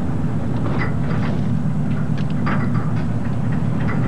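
Steady low rumble of a fishing boat's engine, with faint scattered clicks on top.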